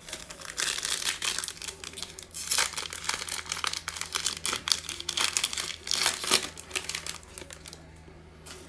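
Plastic foil wrapper of a football trading card pack being torn open and crinkled in the hands, dense irregular crackling that dies down near the end.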